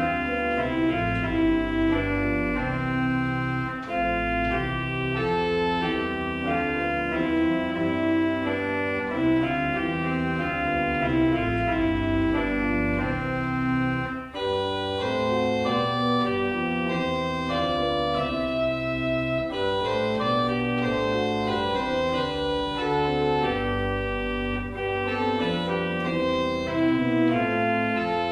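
Organ playing held chords over a moving bass line.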